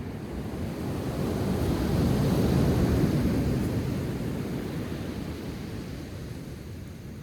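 Ocean surf: one wave rushes up, swelling to its loudest about a third of the way in, then slowly washes back and fades.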